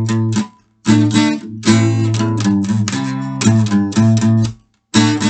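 Instrumental music: strummed guitar chords with a bass line and no singing, cutting off into brief silence twice.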